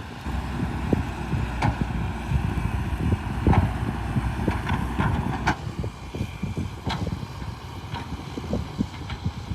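Heavy construction machinery working: a low engine rumble with repeated metal clanks and knocks, some of them ringing.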